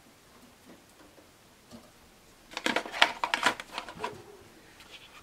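Plastic clicking and rattling as a tray of board-game miniatures and its packaging are handled, a quick cluster of clicks starting about two and a half seconds in after a faint start.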